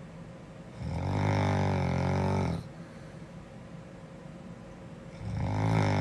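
A sleeping girl snoring: two long, low-pitched snores, each lasting nearly two seconds, about four seconds apart. The second is still going at the end.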